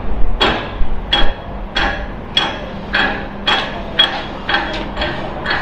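Hammer blows on metal, about two a second in a steady run, each one ringing briefly, over a faint steady hum.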